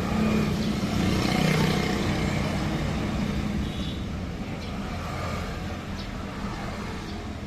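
An engine running with a steady low hum that gradually gets quieter.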